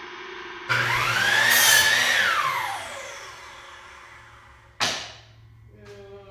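A power tool's motor run briefly: it starts suddenly, its whine rises and then falls away over about two seconds as it winds down. A sharp knock follows near the end.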